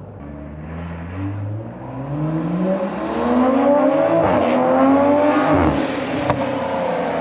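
Toyota MK5 Supra with an HKS titanium exhaust and catless downpipe accelerating hard: the exhaust note climbs in pitch and loudness, breaks briefly at a gear change about four seconds in, climbs again, then drops away as the throttle comes off near the end.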